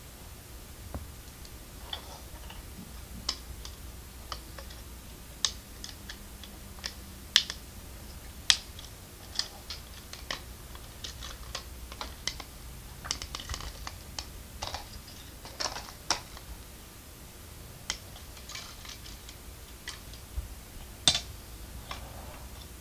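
LEGO plastic bricks and parts being handled and snapped together by hand: irregular small sharp clicks, a few louder than the rest.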